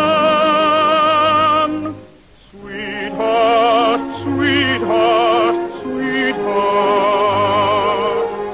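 Operatic singing with wide vibrato on long held notes, with a brief break for breath about two seconds in.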